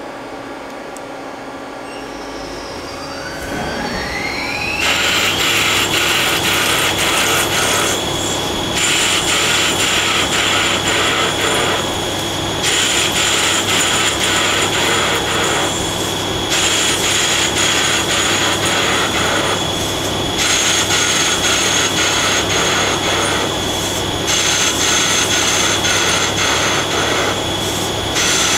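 Mazak CNC lathe spindle speeding up with a rising whine, then running at speed with a steady high whine. A grooving tool cuts a deep groove dry into an aluminium bar in repeated passes. The cutting noise breaks off briefly every three to four seconds as the tool steps across the groove.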